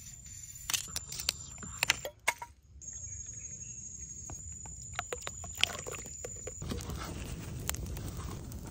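A metal blade scraping and clicking against a glass jar, then liquid pouring into the jar, then a campfire burning with low rumbling and crackles near the end.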